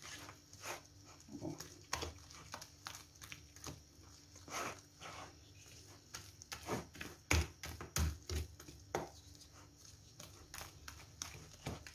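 A spoon stirring thick carrot cake batter in a bowl: irregular wet slaps and scrapes, with a few louder strokes a little past the middle.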